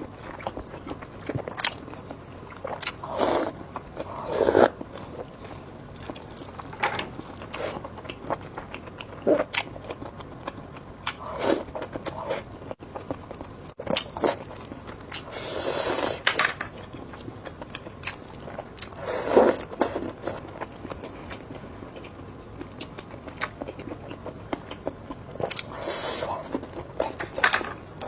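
Close-miked eating: irregular bites, crunching and chewing, with a few longer noisy bursts about a second long.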